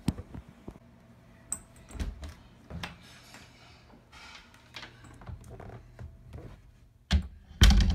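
Quiet, irregular knocks, taps and rubs of someone creeping through a house on foot while holding a phone camera, with two louder thumps near the end.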